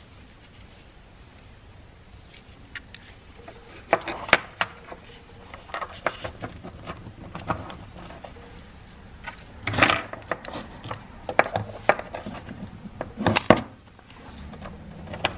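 Small metal parts of an Edelmann Elite power steering filter clicking, tapping and rubbing as the filter, spring and housing halves are handled and fitted back together, with a few sharper knocks spaced a few seconds apart.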